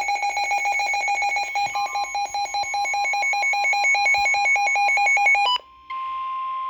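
Emergency Alert System alert tones for a flood warning: a fast electronic pulsing of two alternating pitches, about eight pulses a second, for about five and a half seconds. After a brief gap a steady single-pitch warning alarm tone starts and holds.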